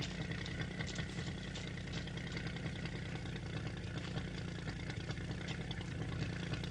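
A motor running steadily: a low hum with a faint high whine above it.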